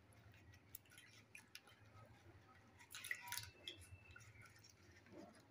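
Faint wet squishing, clicks and drips as raw fish is rubbed and rinsed by hand in water, with a brief louder wet noise about three seconds in.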